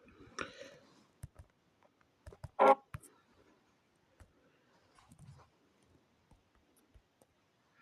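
Scattered faint clicks and taps, with one short, louder sound a little under three seconds in.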